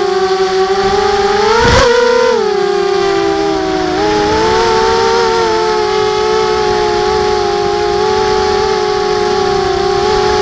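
Emax Nighthawk quadcopter's brushless motors and propellers whining in flight at a fairly steady speed, several close tones drifting slightly. There is a brief rise in pitch about two seconds in, then the tones settle lower.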